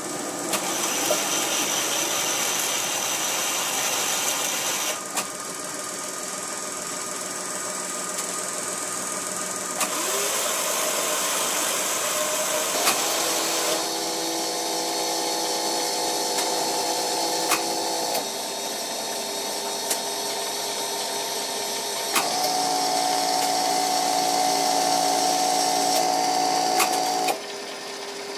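Small electric motors of a model steelworks crane running. Several steady whining tones start, stop and shift every few seconds, one rising in pitch partway through, with sharp clicks now and then over a constant hiss.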